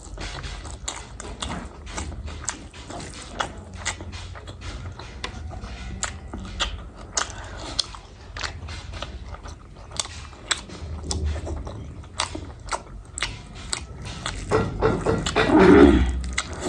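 A person chewing and eating close to the microphone, with frequent irregular wet mouth clicks and smacks. A louder, briefly pitched mouth or throat sound comes near the end.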